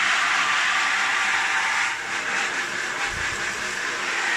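Handheld shower head spraying water onto a wooden-framed silk screen, a steady hiss of water hitting the mesh and splashing, rinsing off water-based ink. A soft low bump comes about three seconds in.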